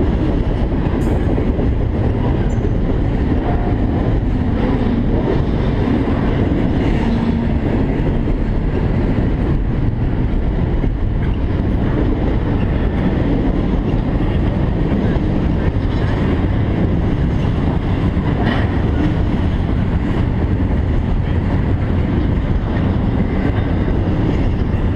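CSX intermodal freight train rolling steadily past on the rails: a continuous loud rumble of wheels on track, with a few faint sharp clicks from the rail joints.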